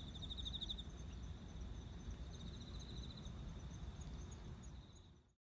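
Insects trilling outdoors: a steady high-pitched drone with louder rapid pulsing trills twice, over a low background rumble. The sound fades out near the end.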